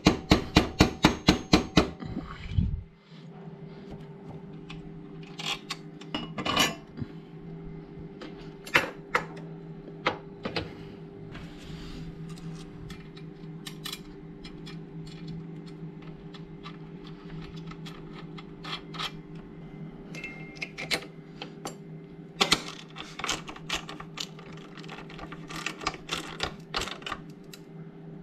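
Hand tools working motorcycle bolts with a socket wrench: a quick, even run of clicks about five a second at the start, then scattered metal clinks and taps. A steady low hum runs under it all.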